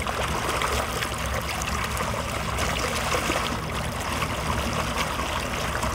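Lake water splashing and rushing steadily around bare feet dragged through it from the front of a moving pontoon boat, over a low rumble.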